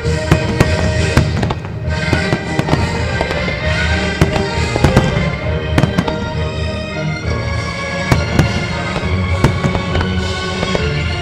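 Aerial firework shells bursting in quick succession, many sharp bangs, with music playing underneath.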